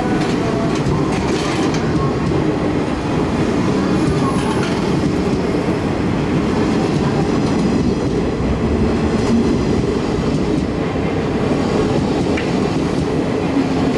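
Twilight Express sleeper train's coaches rolling slowly past on departure, a steady low rumble of wheels on the rails with occasional faint clicks.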